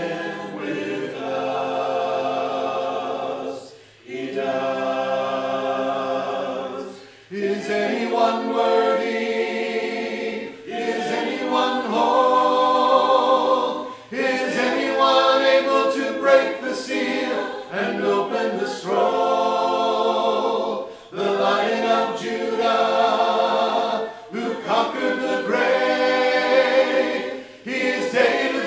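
Voices singing a slow worship song phrase by phrase, with short breaks between the lines.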